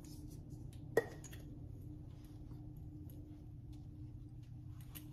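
A single sharp clink about a second in as glass and plastic spice jars are handled, over a steady low hum, with faint small ticks of handling.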